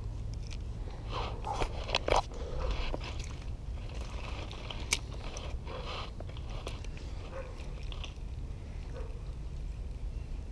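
Crunching and scraping handling noise close to the microphone as the angler shifts about with his rod and reel on the bank, over a low steady rumble. There is a cluster of sharper clicks about two seconds in.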